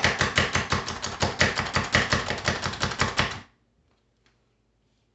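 Pampered Chef food chopper's spring-loaded plunger being pumped rapidly, a fast, even run of plastic clacks as the blades strike down, about seven or eight a second. The chopping stops a little past halfway.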